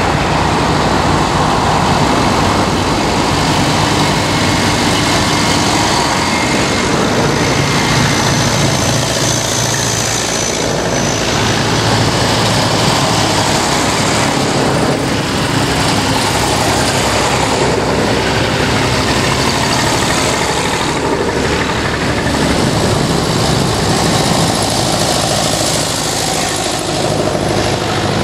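Engines of a line of vintage tractors, grey Ferguson and red Massey Ferguson among them, driving past one after another at road speed, the engine note rising and easing as each tractor goes by.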